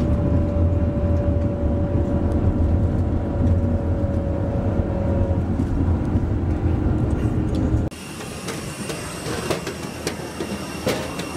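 Tour coach driving, its engine and road noise heard from inside the cabin as a loud, steady low rumble. About eight seconds in the sound cuts abruptly to a quieter, thinner mechanical hum with scattered clicks and steady high whines.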